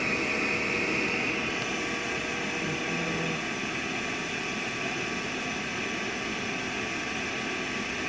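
XYZprinting 3D printer's fans whirring steadily while the extruder heats up for filament loading; the higher part of the whir eases off about a second and a half in.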